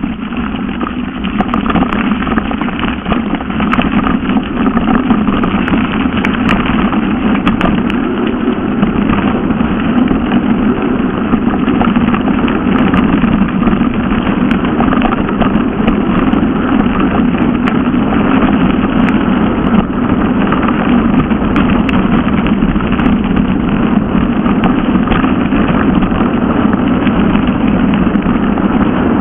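Steady, loud rumble of a mountain bike riding fast downhill on a gravel forest track: wind on the mounted camera's microphone mixed with the tyres rolling over gravel, with occasional small rattles and clicks. It grows louder in the first couple of seconds as the bike picks up speed.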